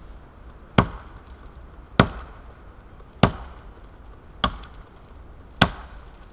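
Wetterlings Forest Axe chopping into the trunk of a dead standing tree: five sharp blows, a little over a second apart.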